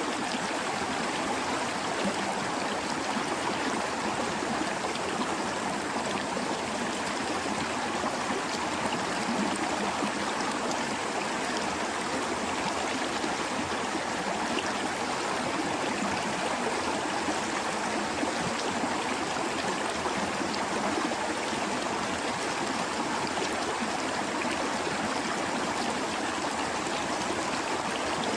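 Water rushing steadily: an even hiss with no pauses and no change in level.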